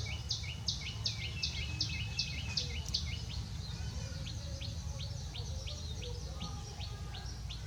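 A bird calling in a fast, even series of short high chirps, about three a second, loud for the first three seconds and then fainter as the series goes on.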